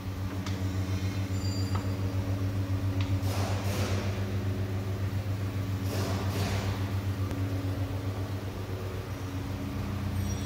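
A steady low machine hum runs throughout, with two short hissing rushes about three and a half and six seconds in.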